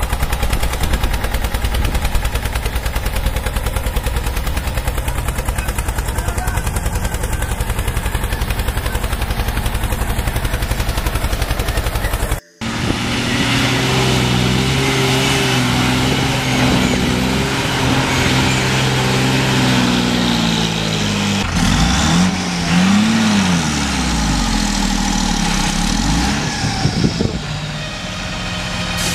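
Engine sound effects laid over toy play: first an engine running with a fast, even rattle, which cuts off suddenly about twelve seconds in; then a pitched engine note that rises and falls in pitch, easing off near the end.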